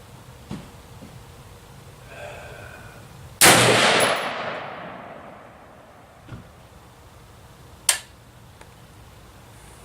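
A single shot from a DPMS Oracle AR-15 firing a 5.56×45 mm 55-grain full-metal-jacket round, a sudden loud crack about a third of the way in whose echo dies away over about two seconds. A shorter, quieter sharp crack comes near the end.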